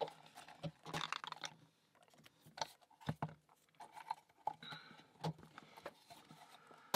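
Faint, scattered clicks and creaks of thin laser-cut plywood pieces being pressed into their slots by hand.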